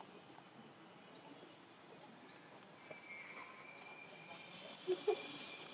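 Outdoor natural ambience: a short, high, rising chirp repeats about once a second, and a steady high-pitched tone joins about halfway through. A few brief vocal sounds come about five seconds in.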